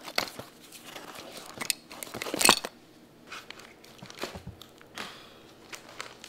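Crinkling, crackling and tearing of stiff, water-damaged photo album pages and photographs as they are peeled apart and lifted, in irregular bursts, the loudest about two and a half seconds in.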